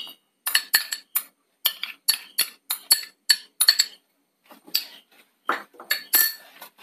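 Metal spoon clinking and scraping against glass and stainless-steel bowls as grated coconut and spices are spooned out. A quick run of about a dozen sharp clinks in the first four seconds, then a few sparser ones.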